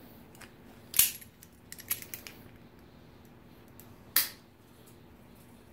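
Steel hand tools being handled: a few sharp metallic clinks, one loud about a second in, a quick cluster around two seconds, and another about four seconds in, as the easy-out extractor with the seized pipe plug on it and the vise grips knock together and against the cast-iron block.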